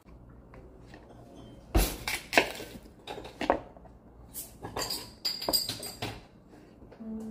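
Knife cutting a peeled malanga root into chunks on a plastic cutting board: a run of irregular sharp knocks and scrapes, starting about two seconds in and easing off near the end.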